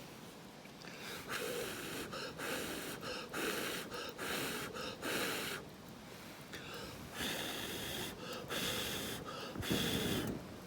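Someone slurping ramen noodles from a bowl: a series of short, airy slurps, each under a second.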